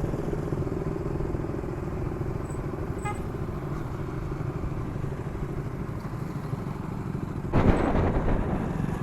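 Motorcycle engine running steadily, heard through an action camera's built-in microphone along with wind and road noise. About seven and a half seconds in, a sudden louder rush of noise comes in and stays up.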